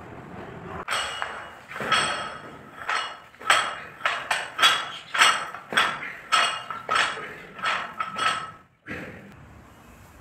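Repeated ringing metallic strikes, about two a second, each ringing at the same pitch, starting about a second in and stopping near the end after one last weaker strike.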